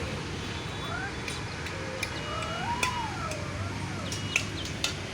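Birds chirping: scattered short, sharp chirps and a few gliding calls over a steady low background rumble.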